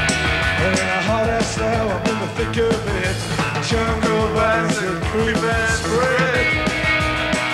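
Live rock band playing at full volume: electric guitar over drums with steady cymbal hits, the guitar or voice bending in pitch around the middle of the passage.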